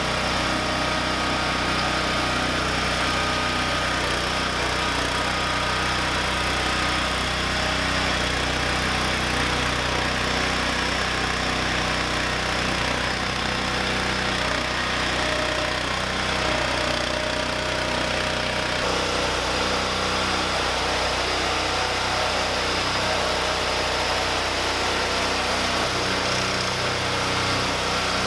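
Lawn tractor's small engine running at a steady speed.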